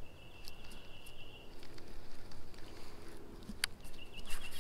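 Baitcasting reel: a thin steady whir as line is wound in, a few small clicks and one sharp click, then the spool whirring and ticking as a lure is cast near the end.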